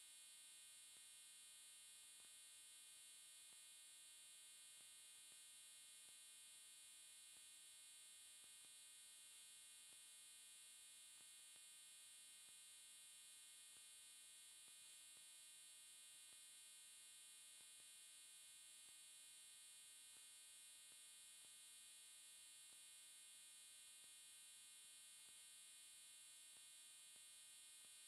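Near silence: only a faint, steady electronic hum and hiss, with no sound from the crumbling sand.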